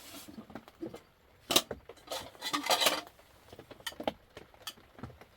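Irregular light clattering and rustling of objects being handled by hand: a string of short knocks and clicks, with the busiest handling about halfway through.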